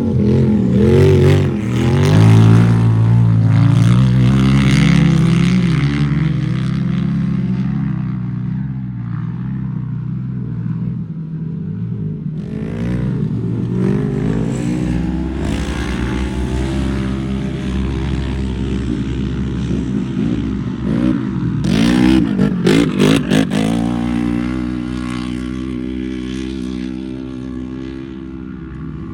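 Off-road race vehicle engine running hard, its pitch rising and falling with the throttle. It is loudest in the first few seconds and turns choppy and stuttering for a couple of seconds about 22 seconds in.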